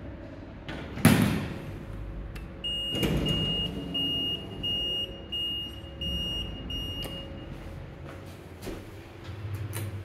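A lift's call button sounding an alarm-like beep instead of a chime: a run of short, high beeps lasting about five seconds. A loud thump comes about a second in, before the beeping starts.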